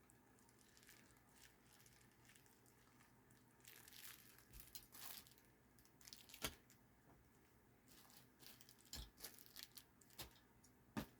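Faint rustling and crinkling of plastic packaging as the action camera's small accessories are handled, with a few sharp clicks of plastic parts, the clearest a little over six seconds in and another near the end.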